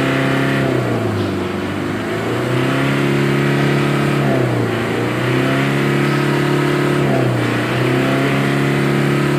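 Mitsubishi L300 van's diesel engine being revved hard with no load, held at high revs. It drops back briefly about a second in, around halfway and again near three-quarters, climbing again each time: a free-revving test for black exhaust smoke after a fuel-saver device was fitted.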